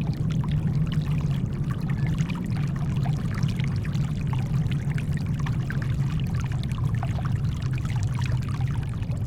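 Steady brown noise, a deep even rumble, mixed with shoreline water: small splashes and fizzing crackles over the top.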